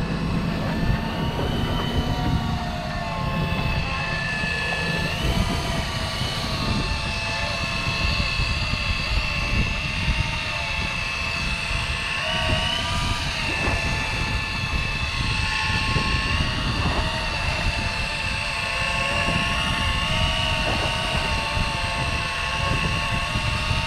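Electric fishing reel's motor whining steadily as it winds the line in, its pitch wavering briefly a few times as the load changes, over a constant low rumble.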